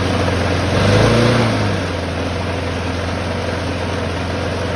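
1994 Snapper P21507B walk-behind mower's 5 HP Briggs & Stratton Quantum engine running on a fixed throttle, just started on its newly fitted primer-style carburetor. About a second in it swells briefly, rising and falling in pitch, then settles to a steady run.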